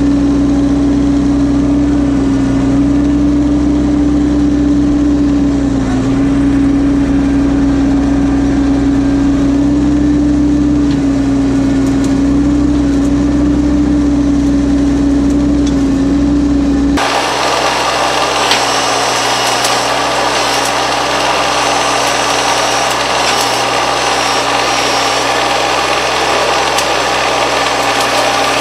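Mahindra compact tractor's diesel engine running steadily under load as the front-loader bucket pushes into brush. About two-thirds of the way in the sound changes abruptly, losing its deep hum and turning thinner and hissier.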